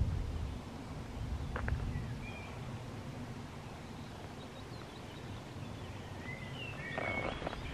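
Outdoor ambience on a rural lane: a steady low rumble of wind on the microphone with a few faint bird chirps, about two seconds in and again near the end.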